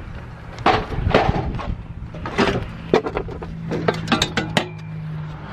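Scrap metal being handled and shifted: irregular clanks, knocks and rattles of metal pieces, with gravel crunching underfoot. A steady low hum runs beneath.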